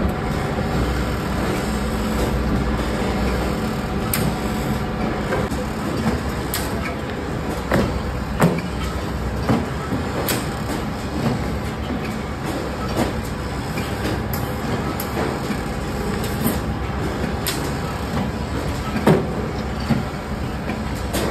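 Soap-making machinery running steadily with a drone, with occasional sharp knocks and clicks from the bars and metal parts being handled.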